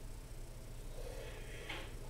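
Faint rustling as a homemade squishy cut from kneeling-pad foam is handled close to the microphone, a little stronger just before the end, over a low steady hum.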